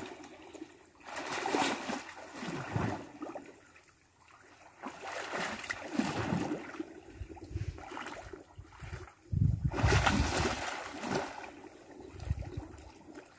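Irregular splashing in shallow water, in several bursts of a second or two each, the loudest about ten seconds in.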